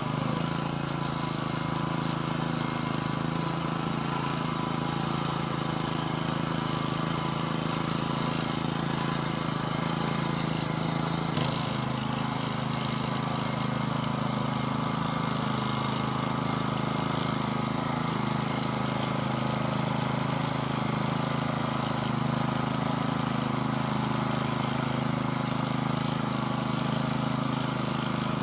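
Engine of a Vari two-wheel walking tractor running steadily under load as it pulls a tine cultivator through the soil, with a slight shift in its note about a third of the way through.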